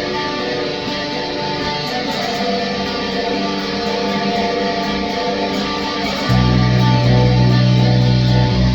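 A band playing an original song on guitars, without drums, just after a count-in. About six seconds in, loud low notes come in under the guitar.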